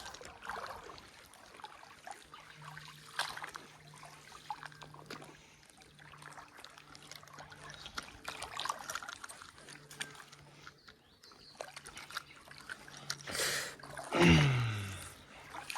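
Creek water trickling, with scattered small clicks and splashes. Near the end comes a short sharp splash-like burst, then a brief low voice sound that falls in pitch.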